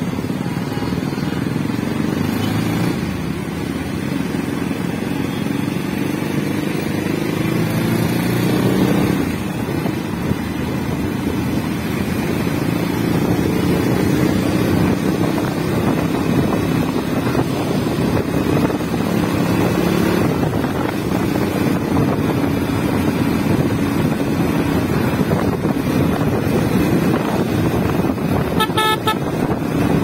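Motorcycle engine under way, heard from the rider's seat: it pulls and rises in pitch for the first nine seconds or so, then runs steadily at cruising speed, with wind and road noise. A short horn toot sounds near the end.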